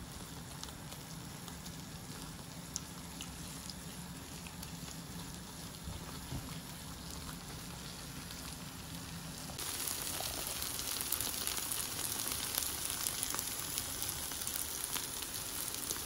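Thick bean and sardine chutney sizzling quietly in a non-stick frying pan as it is stirred and cooked down dry. The sizzle jumps louder about ten seconds in.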